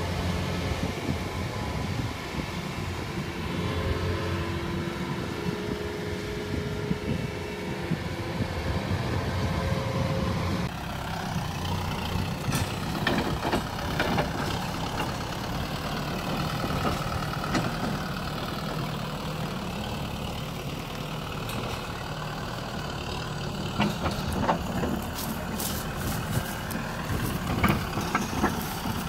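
Diesel farm machinery running steadily: first a rice combine harvester, then, after a sudden change about eleven seconds in, a Kubota M6040SU tractor's four-cylinder diesel engine. Scattered clanks and knocks are heard over the tractor's engine.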